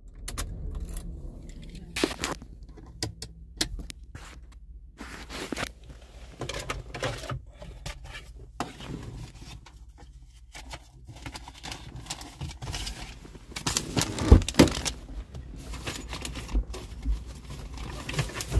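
Irregular clicks, knocks, scrapes and rustling from things being handled and shifted inside a car cabin, loudest about 14 seconds in, over a faint steady low rumble.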